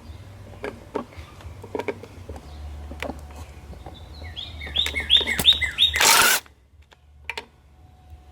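Scattered clicks and clinks of tools over a steady low hum, then a bird chirping a quick run of about six falling notes. Right after, a short loud hiss cuts off suddenly.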